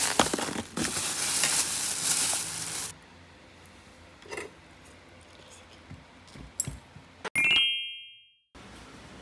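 A clear plastic takeaway food container's lid crinkling loudly as it is pressed and pulled open for about three seconds, then a few faint clinks. Near the end, a short bright chime of quickly rising notes cuts off into silence.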